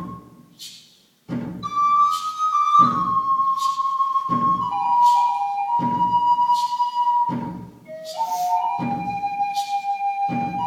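Native American river cane flute playing a slow melody: a held note fades out, a short pause, then the tune resumes high and steps downward through several held notes. A low drum beat sounds steadily about every second and a half beneath it.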